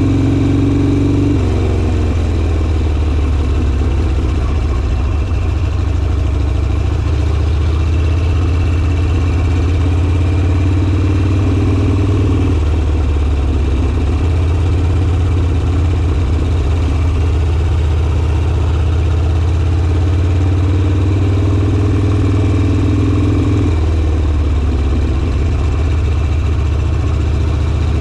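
Harley-Davidson Sportster V-twin engine running under way. Its note changes in steps a few times: about a second in, around halfway, and again near the end.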